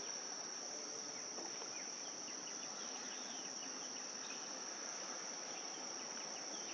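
Insects trilling in a continuous, steady high-pitched chorus, with faint short chirps scattered over it.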